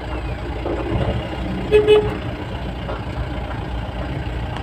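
Vehicle engine running steadily, with a short horn toot about two seconds in.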